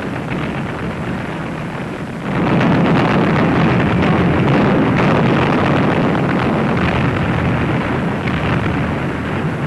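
A loud, steady rumbling roar with no separate bangs, stepping up sharply about two seconds in.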